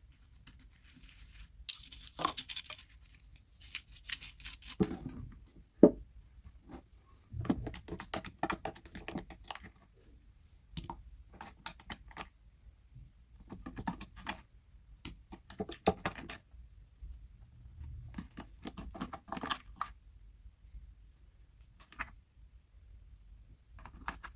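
Colored slime being worked by hand in repeated bursts of sticky crackling and clicking, with short quiet pauses between.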